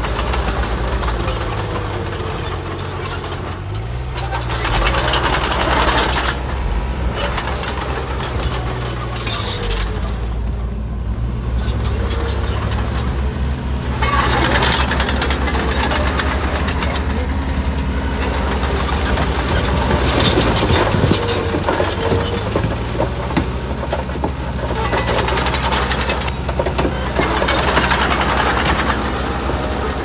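Heavy diesel construction machinery, bulldozers and dump trucks, running continuously. The engine note shifts and the loudness swells for a few seconds at a time, several times over, as the machines work.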